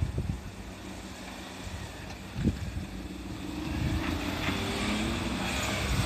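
A road vehicle's engine coming closer, growing louder from about halfway through, over a low rumble with a single thump about two and a half seconds in.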